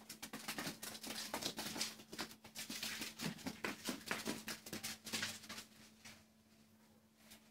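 Shetland ponies moving about: a quick, irregular run of hoof knocks and scuffs for about five seconds that then thins to a few scattered ones, over a faint steady hum.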